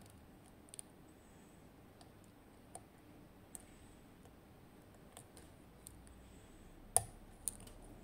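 Faint scattered clicks of a hook pick working the pins of an Assa 700 pin-tumbler cylinder held under tension, with one sharper click about seven seconds in.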